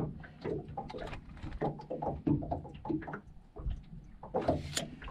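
Handling noises as a freshly caught striped bass is measured: irregular light knocks and rustles, a little louder near the end.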